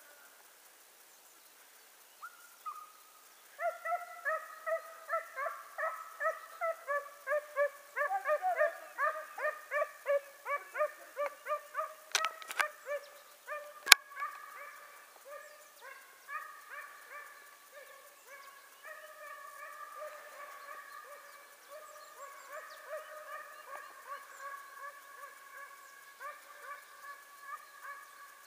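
Hare-hunting scent hounds baying on a trail: fast, repeated high yelps at about two a second, several dogs overlapping, starting a few seconds in and easing off in the second half. A sharp crack sounds near the middle, with a fainter one just before it.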